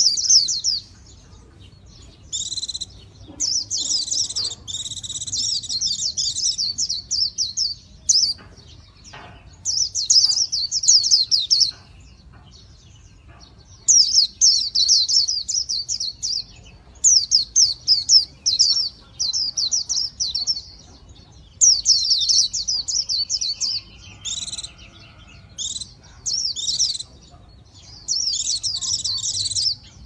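Caged white-eye singing: fast, high twittering phrases of one to four seconds, repeated with short pauses between them.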